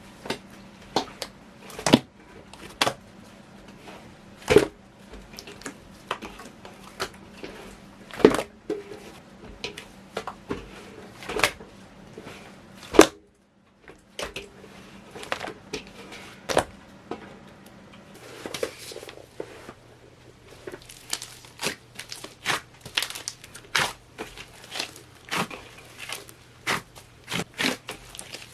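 Large mass of slime being kneaded and stretched by hand, with irregular sharp pops and clicks throughout. A brief silent gap comes about thirteen seconds in.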